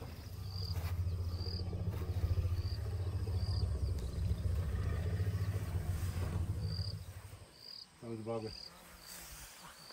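Elephant rumble: a long, deep, steady rumble that stops about seven seconds in, part of the greeting rumbles between elephants meeting each other.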